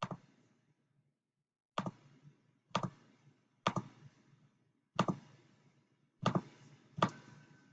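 Seven sharp clicks about a second apart, each a quick double snap, as the inputs of a logic circuit are set for testing against its truth table.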